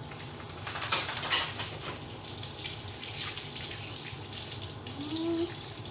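Garden hose spraying water onto a paved floor and over a dog's coat as the dog is bathed: a steady splashing hiss.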